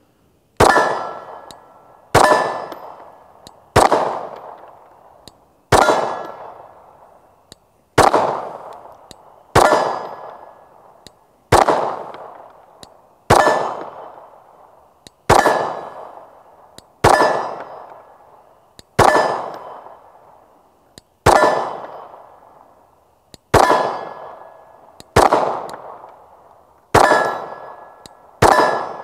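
Gen 3 Glock 19 9mm pistol firing slow, deliberate shots, about one every two seconds. Each shot is followed by the ringing clang of the bullet striking steel plate targets.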